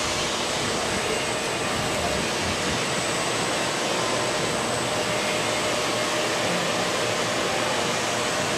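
Steady, even hiss of running kettle machinery, with a few faint steady tones.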